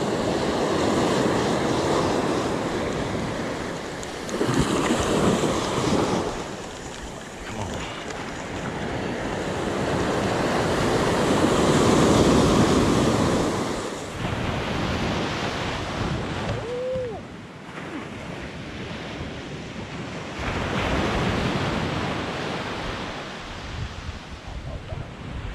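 Ocean surf breaking on the beach in repeated surges that rise and fall, the loudest about halfway through, with wind buffeting the microphone.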